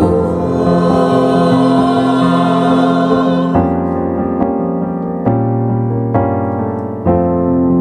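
Piano accompaniment playing an instrumental interlude between verses of a choir song. Fuller sustained chords give way, about three and a half seconds in, to single struck chords about once a second.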